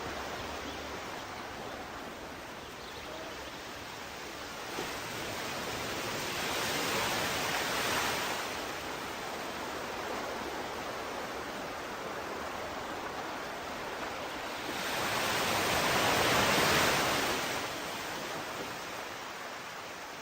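Sea waves washing onto a shore: a steady hiss of surf that swells twice, a wave building and falling away about seven seconds in and a louder one about sixteen seconds in.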